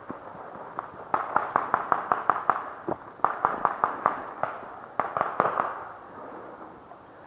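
Paintball markers firing in rapid strings of pops, about six or seven shots a second, in three bursts over a few seconds.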